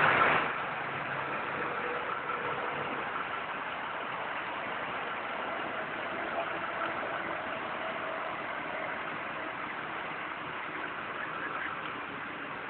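A vehicle engine idling steadily, a constant hum under outdoor street noise, after a brief louder sound in the first half second.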